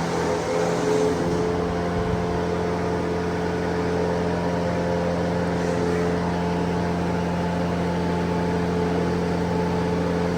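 A motor running steadily at constant speed, an even hum with no change in pitch.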